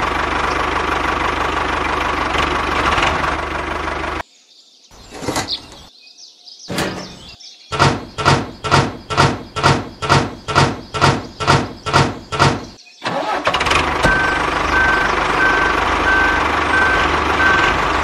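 An engine running steadily, then after a short lull about fourteen regular, evenly spaced strokes at a little under three a second, then the engine running again. A steady beep at about two a second joins it near the end.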